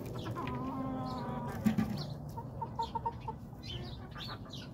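Chickens clucking, with a quick run of about five short clucks in the middle, and small birds chirping high over them.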